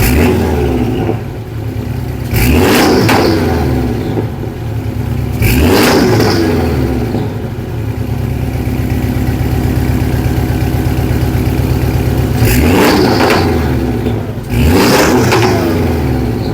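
Porsche 718 Cayman S turbocharged flat-four idling through a race downpipe and sport exhaust, blipped four times: each rev rises sharply and falls back to idle within about a second, two blips near the start and two more later.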